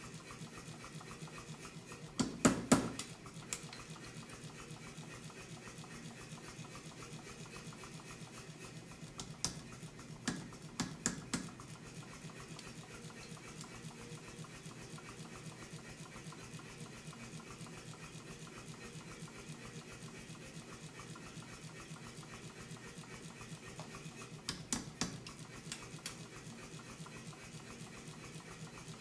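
Power hammer striking hot steel in three short groups of sharp metal blows: about two seconds in, around ten to eleven seconds, and near the end, the first group loudest. Between them a steady low hum.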